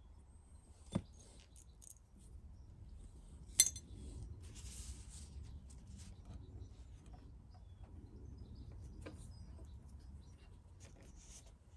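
Light clicks and clinks of the metal neck plate and screws being handled and set down, then soft knocks and rubbing as the bolt-on neck is separated from the Stratocaster body. A sharp clink about three and a half seconds in is the loudest, after a softer knock about a second in.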